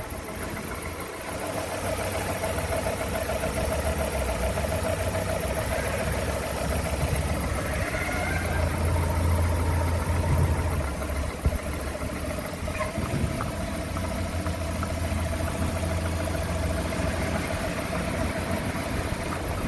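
Rover 25 engine idling steadily with a knock inside the engine.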